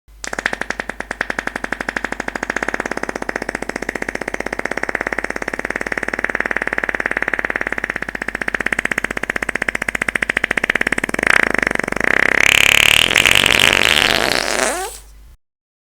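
A long fart: a rapid, fluttering rasp that runs for about fifteen seconds. It turns louder and higher-pitched about three-quarters of the way through, then tapers off and stops near the end.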